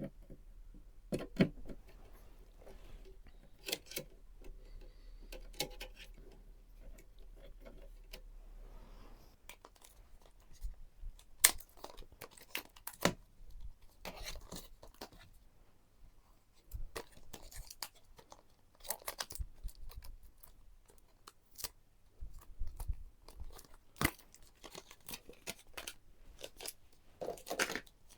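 PC parts being handled and fitted during a build: irregular clicks, knocks and rustling, with the sharpest click about eleven seconds in.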